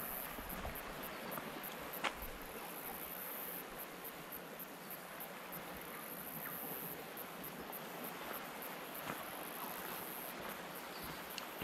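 Insects chirring at a very high pitch, swelling and fading in long bursts over a steady hiss, with one sharp click about two seconds in.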